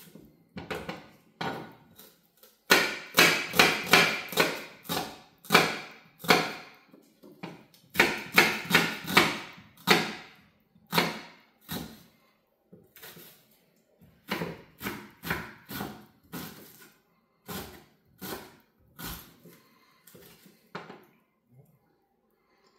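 Chef's knife chopping a red onion on a wooden cutting board: the blade knocks against the board in quick runs of strokes with short pauses between, slower and softer strokes in the second half.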